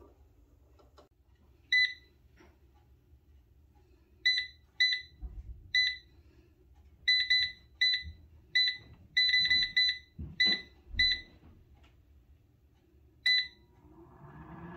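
Power XL 10-quart air fryer oven's touch-control panel beeping as its buttons are pressed to set the cooking time: about fifteen short beeps on one pitch, some in quick runs, with a few soft knocks between.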